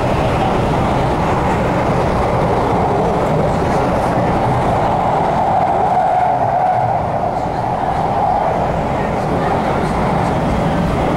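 MTR K-Train electric multiple unit running between stations, heard inside the carriage: a steady rumble of wheels on rail with a hum that swells slightly about halfway through.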